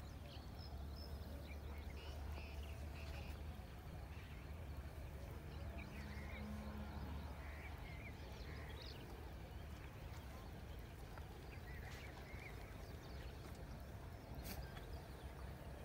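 Outdoor background of a steady low rumble with scattered short bird calls, and one sharp click near the end.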